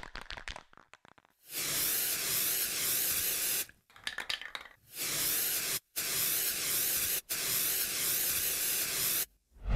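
Aerosol spray-paint can: a quick clicking rattle, as of the mixing ball being shaken, then four long hisses of spray with short breaks between them, and a brief rattle again about four seconds in.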